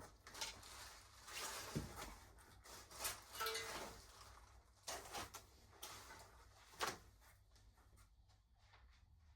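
Handling noises: irregular rustling with several sharp knocks and clacks about a second or more apart, as of objects being picked up and set down.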